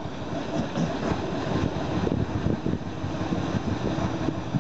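Small 0-4-0 diesel shunting locomotive's engine running, a rough steady clatter that grows a little louder about two seconds in.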